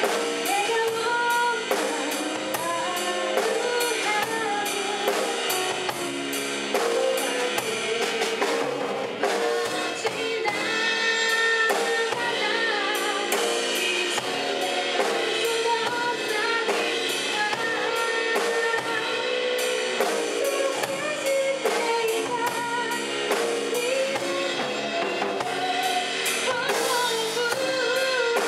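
Live band music: a Bonny drum kit played with steady beats, an electric bass, and a woman singing into a microphone.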